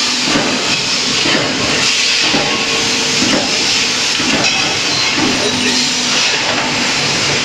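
Steady hissing machinery noise from a wheel rim production line, without pause or distinct knocks.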